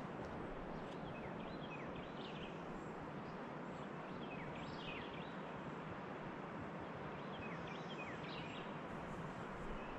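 Steady rush of flowing river water, with small songbirds singing short phrases of quick falling chirps, three times.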